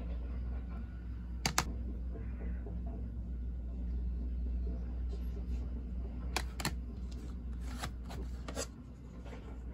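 Plastic CD jewel cases being handled and turned over, with light rubbing and a few sharp plastic clicks: two close together about a second and a half in, another pair midway, and two more near the end. A steady low hum runs underneath.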